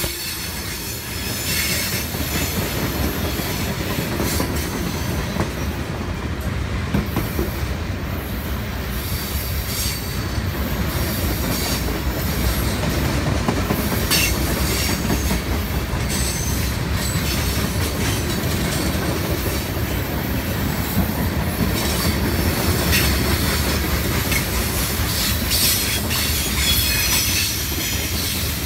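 Freight train cars rolling past at close range: a steady rumble and clatter of steel wheels on the rails, with brief high-pitched wheel squeals every few seconds.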